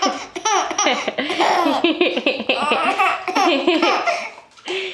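Nine-month-old baby laughing hard, set off by a pretend sneeze: a long run of quick, choppy belly-laugh bursts that breaks off briefly near the end and then starts again.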